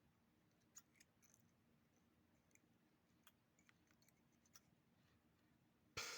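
Near silence with a faint low hum and a few faint, sharp clicks spread apart, then a short rush of noise right at the end.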